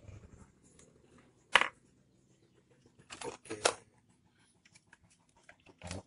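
Handling noise of a laptop motherboard being lifted out of its plastic chassis: one sharp click about a second and a half in, then a few clattering knocks around three seconds in, with small ticks between.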